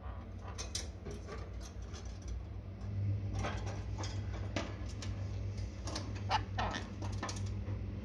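Blue quaker parrot moving about its cage: a run of small clicks and scratches, with two short squeaky chirps about six and a half seconds in, over a steady low hum.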